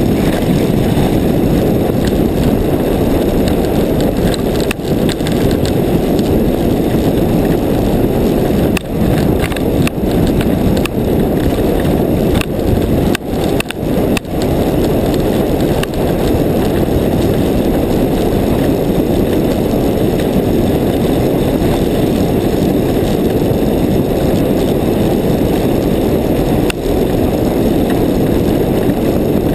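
Steady rushing noise of sliding down a groomed ski slope: the runners scraping over snow, mixed with wind on the microphone. A few sharp knocks from bumps come about a third of the way through.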